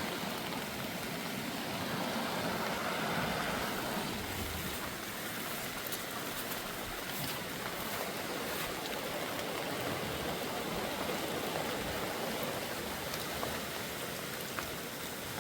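Rushing water of a swollen river in flood, a steady, even noise.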